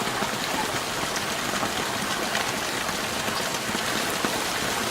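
Heavy rain pouring down steadily, a dense even hiss with individual drops ticking close by.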